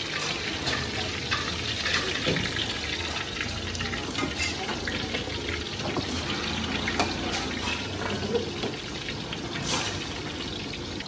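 Bánh xèo frying in deep oil in metal woks: a steady sizzle full of small crackles, with a few clinks of a metal spatula against the wok.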